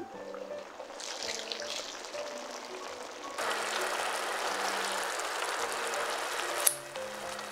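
Kimchi and pork-belly braise bubbling at a simmer in a pot, over light background music, with a louder stretch of bubbling midway. It ends in one sharp click near the end.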